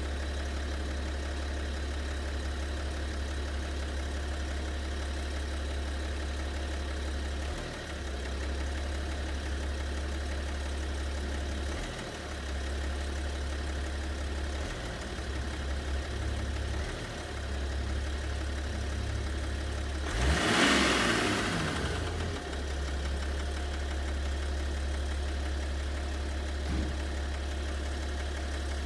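BMW 730d's M57 3.0-litre straight-six diesel (306D3) idling steadily, with a knock in the engine that the owner cannot explain. About two-thirds through, a louder hissing burst lasts about two seconds.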